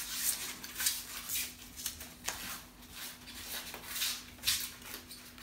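Plastic protective wrapping being pulled and peeled off the tubes of a bassinet frame: a run of irregular crinkling and rustling, about two rustles a second.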